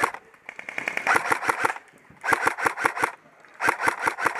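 Airsoft gun firing on full auto in rapid bursts: a quick run of sharp cracks, about three bursts of roughly a second each with short pauses between.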